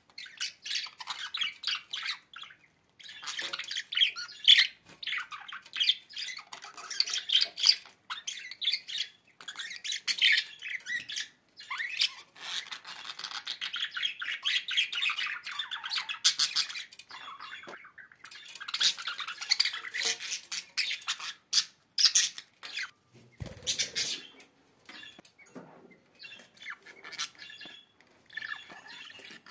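A bird squawking and chattering in rapid, scratchy bursts with short pauses between them, and a brief thump about three quarters of the way through.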